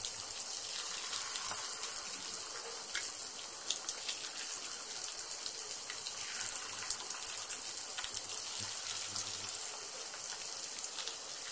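Batter-coated chicken pieces deep-frying in hot oil in a frying pan: a steady sizzling hiss scattered with crackles and pops as more pieces go into the oil.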